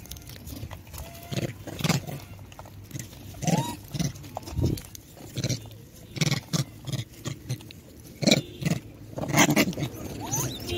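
A troop of rhesus macaques foraging on gravelly ground, with short scratching and scuffling noises throughout. A few brief rising squeaky calls come about a second and a half in and again about three and a half seconds in.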